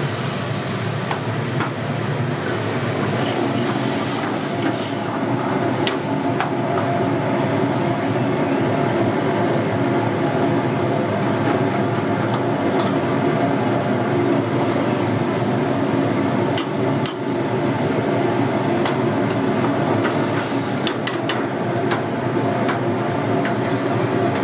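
Steady rumble and hum of a lit commercial gas burner under a pan of simmering curry, with a few sharp clicks about a quarter of the way in, about two-thirds of the way in and near the end.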